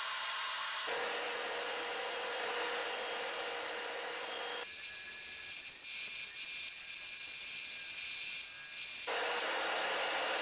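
Bandsaw running and cutting a wooden paddle blank: a steady hiss of the blade through the wood over the motor's hum. The tone shifts abruptly a few times.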